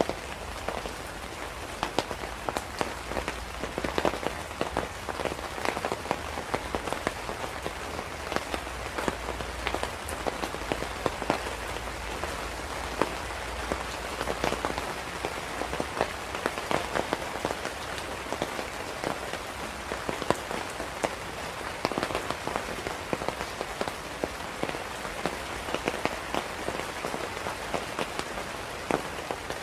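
Steady rain falling on a surface, with many sharp individual drop hits and a low rumble underneath.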